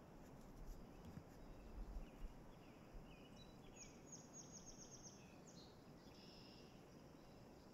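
Faint songbird calls: a few chirps, then a quick run of about seven high notes around four seconds in, followed by more scattered calls. Under them a low rumble with a few soft bumps in the first three seconds.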